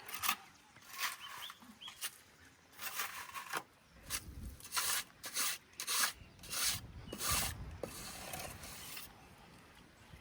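A series of rough scraping strokes, about ten of them at an uneven pace.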